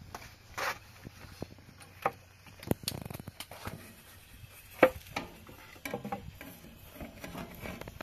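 Scattered light knocks and clicks with brief rustling, irregular and unhurried; the sharpest knock comes a little past the middle.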